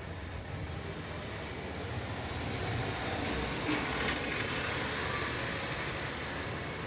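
A steady, noisy rumble, slightly louder around the middle.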